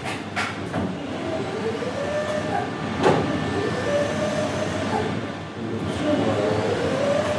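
Elekta Versa HD linear accelerator gantry rotating: a steady mechanical rumble with a faint whine that wavers up and down in pitch and a couple of light knocks. It carries a rubbing sound from the moving covers against the static ones, which the engineers are checking for whether it is normal friction.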